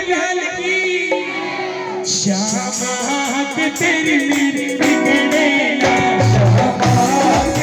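Live Hindi devotional bhajan: a man singing into a microphone over amplified instrumental accompaniment with a steady percussion beat.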